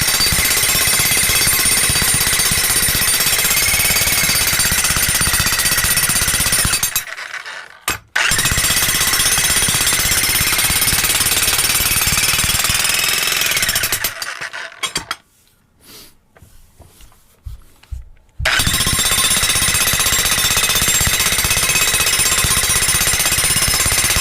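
Hercules electric jackhammer fitted with a tamping plate, hammering steadily with a whine riding above the blows. It runs in three long bursts: it cuts out about seven seconds in, starts again a second later, stops about fourteen seconds in with a few scattered knocks, and starts again about four seconds later.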